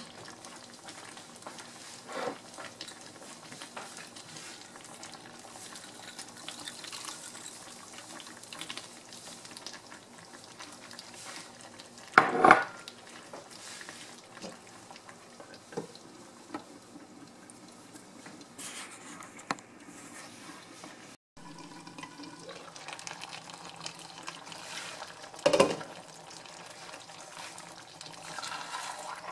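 A wooden spatula stirring and scraping a simmering tomato-sauce stew in a nonstick skillet, with a louder clatter about twelve seconds in as green peas are tipped into the pan, and another sharp knock later.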